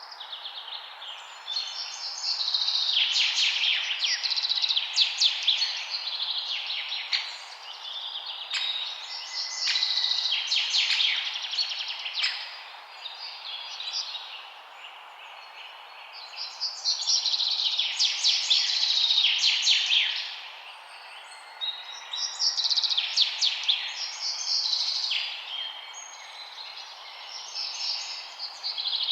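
Songbirds chirping and trilling in spells of a few seconds with short lulls between, over a steady background hiss.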